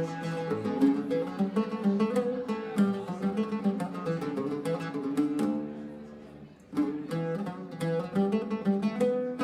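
Background music of plucked guitar with a steady beat, dipping briefly to a fade about two-thirds of the way through before resuming.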